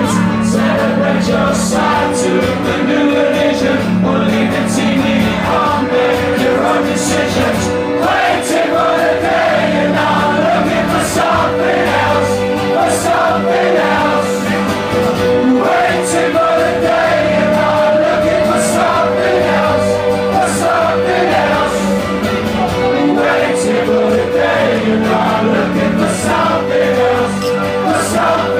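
Live song from a strummed acoustic guitar and an electric guitar, played at a steady loud level with a long held note running through much of it.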